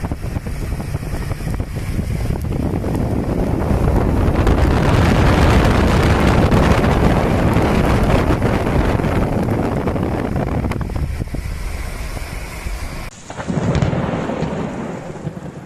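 Thunderstorm: a long, deep roll of thunder over steady rain builds about four seconds in and slowly fades. Near the end a second, shorter rumble follows after an abrupt change in the sound.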